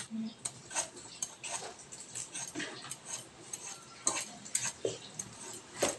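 Knife paring the tough skin off a patola (ridged luffa gourd): a run of short, irregular scrapes and clicks, about two a second.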